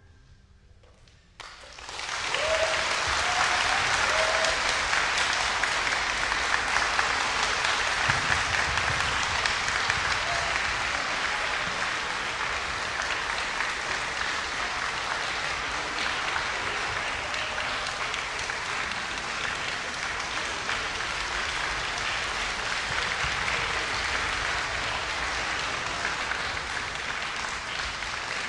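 A concert audience applauding: a short hush after the orchestral music stops, then the clapping starts suddenly about a second and a half in and goes on steadily.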